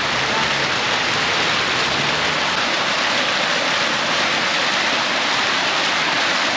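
Fountain water jets splashing steadily into a shallow round basin: a constant rush of falling water.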